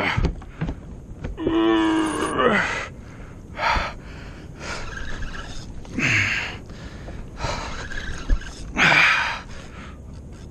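A man breathing hard in loud gasps every couple of seconds, with one drawn-out groan about two seconds in. It is the strain of fighting a fish on a hard-bent jigging rod from a kayak.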